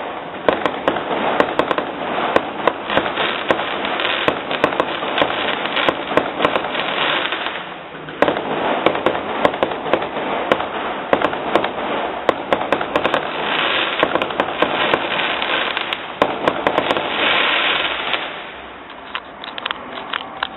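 Fireworks going off in a dense, continuous crackle of rapid bangs and pops, thinning out and getting quieter near the end.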